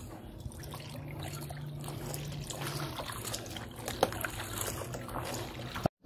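Hands squeezing and kneading a soaked fabric vacuum-cleaner filter in a basin of soapy water, with irregular squishing, sloshing and small splashes.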